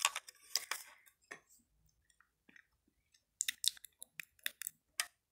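Light clicks and taps from handling small objects: a few near the start, then a quick run of sharp clicks from about three and a half to five seconds in.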